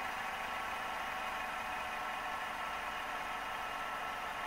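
Fidget spinner spinning on a flat surface, its bearing giving a steady, even whir.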